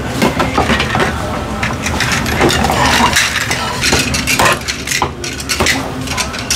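Steel cleaver chopping a roast goose on a thick wooden chopping block: an irregular series of sharp knocks as the blade goes through the crisp skin and bone and hits the wood, over steady kitchen clatter.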